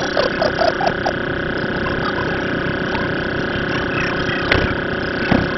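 Car engine running steadily, with brief voices in the first second and two sharp knocks near the end.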